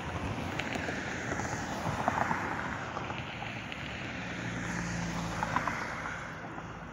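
Cars driving past on a multi-lane road: tyre and engine noise swelling and fading as each one goes by, with a steady engine hum from a car passing a few seconds in.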